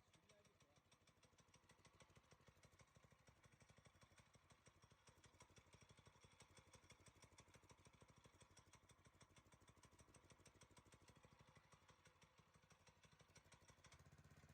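Small petrol engine of an optical fibre cable pushing machine running steadily, faint, with an even rapid firing rhythm.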